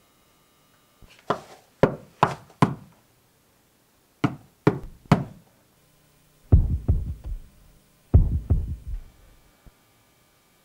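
A series of sharp knocks in uneven groups, first high and crisp, then two heavier, deeper thuds with quick follow-up hits.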